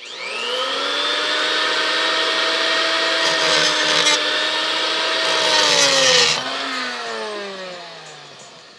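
Angle grinder spinning up with a rising whine and cutting into the aluminium H22 intake manifold, with two spells of harsher cutting about three and a half and six seconds in. It then winds down with a falling whine once the trigger is released.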